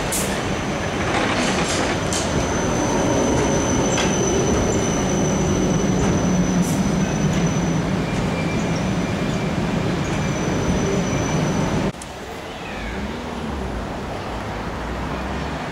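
A low-floor city tram passing close by: rolling noise with a low hum, and a thin, high, steady wheel squeal over most of the pass. About twelve seconds in the sound cuts abruptly to quieter street noise.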